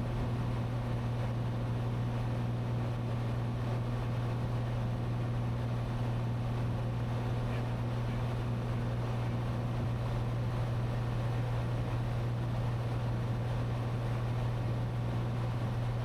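Cessna 182T's six-cylinder Lycoming IO-540 engine and propeller droning steadily in cruise flight, as heard inside the cabin.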